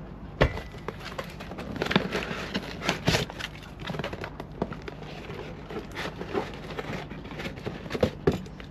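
A cardboard box being unpacked by hand: flaps pulled open and packing cardboard crackling and rustling, with irregular knocks. The loudest is a thump about half a second in as the box is set down on the wooden table.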